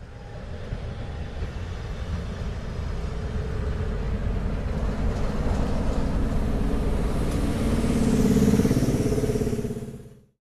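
A pair of Class 37 diesel locomotives running, the engine sound growing steadily louder to its loudest near the end, then cut off suddenly.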